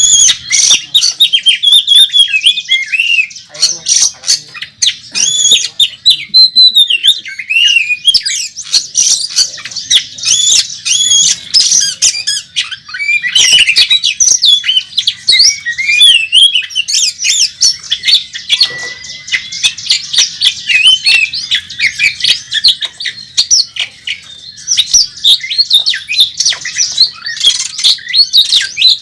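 Oriental magpie-robin singing loudly without pause: a fast, varied run of whistles, rasping notes and sharp clicks, with phrases mimicked from other birds worked in.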